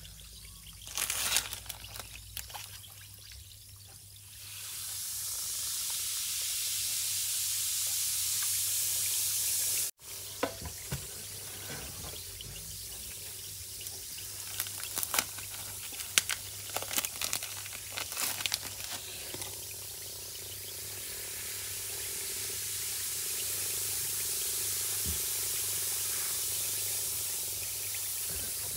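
Fizz bomb bath bombs fizzing in a tub of water, a steady hiss, broken by hands splashing and sloshing the water during the first few seconds and again mid-way. The sound cuts off suddenly for an instant about a third of the way in.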